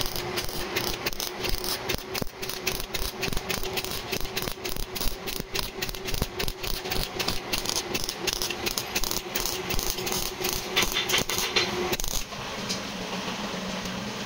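Rapid, irregular mechanical rattling or knocking over a steady hum. It stops abruptly about twelve seconds in, leaving a steadier mechanical hum.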